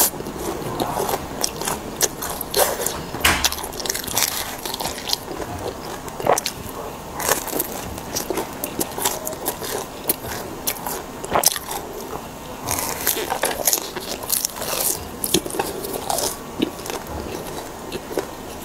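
Close-miked eating: a person biting and chewing crunchy fried food, with many sharp crunches and crackles coming irregularly throughout.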